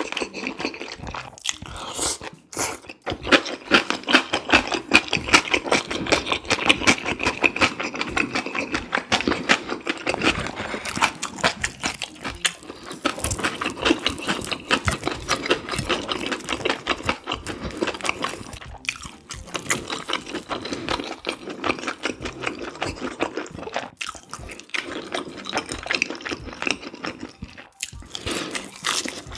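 Close-miked eating sounds: spicy chicken kalguksu noodles slurped in, then steady chewing, including bites of thick oyster-and-chive pancake, with a few brief pauses.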